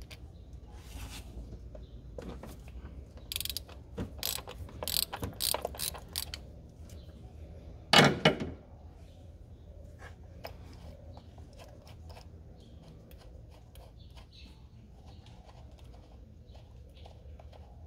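Socket ratchet clicking in quick runs as the 15 mm bolts holding the belt tensioner's damper are worked loose, with one louder metallic clatter about eight seconds in and light tool clicks after.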